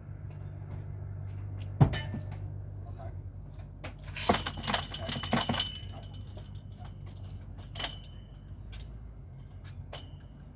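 A sharp click, then about a second and a half of metallic jingling and clinking, then another click, over a steady low hum.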